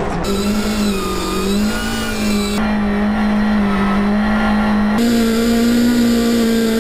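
Subaru rallycross car's turbocharged flat-four engine held at high revs during tyre-smoking donuts, the rear wheels spinning on the tarmac. The note stays high and steady with small wobbles, stepping up slightly about a third of the way in and again about three-quarters through.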